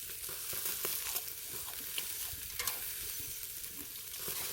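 Pork neck sizzling on a grill over a charcoal brazier: a steady hiss with scattered small crackles.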